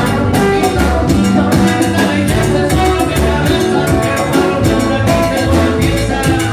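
Live salsa band playing, with trumpet and hand percussion over a steady, driving beat.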